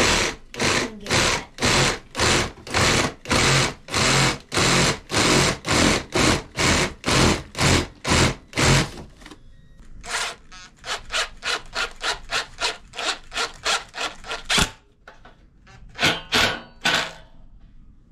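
Hand saw cutting through a wooden stick in steady back-and-forth strokes, about three a second, for roughly nine seconds. Then come quicker, lighter strokes ending in a sharp click, and a few more near the end.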